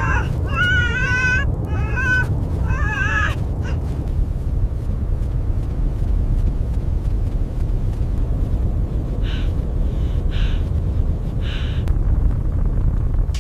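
Blizzard wind rumbling steadily throughout. In the first few seconds a red fox gives several high, wavering whining calls; near the end come three short rustling noises.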